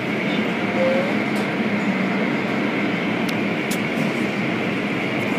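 Automatic car wash's blue soft-cloth strips and water spray beating over the car, heard from inside the car: a steady rushing, churning noise with a faint machine whine and a few light clicks.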